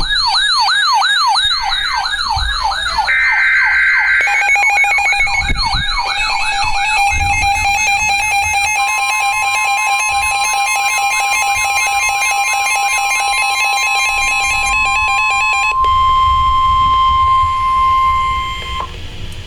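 Emergency alert sounds layered together: a siren wailing up and down several times a second, a brief electronic data screech about three seconds in, and a fast-pulsing alarm beep. From about nine seconds in, a steady Emergency Alert System attention tone holds for about ten seconds and cuts off shortly before the end.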